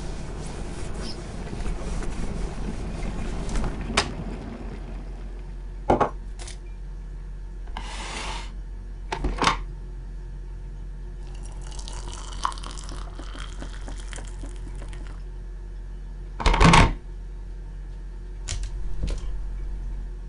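Kitchen sounds of making a hot drink: a few clicks and clinks of crockery, water poured from an electric jug kettle into a mug for several seconds about halfway through, and a loud knock near the end.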